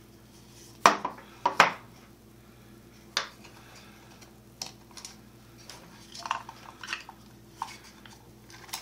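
Sharp clicks and knocks from parts being handled inside a vaporizer's opened housing and its wiring being moved, loudest about a second in, then smaller ones later. A steady low hum runs underneath.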